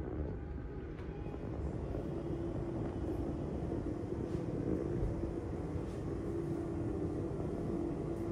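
Steady hum and low rumble of room ventilation or air conditioning, with a steady droning tone coming in about two seconds in and a few faint knocks.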